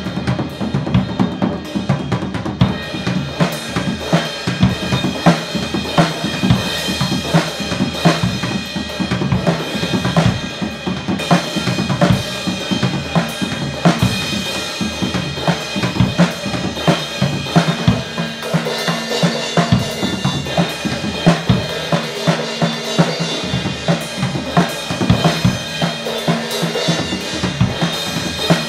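Acoustic drum kit played solo in a fast, busy groove, with snare, bass drum and cymbals struck densely. Cymbal wash grows heavier about two-thirds of the way through.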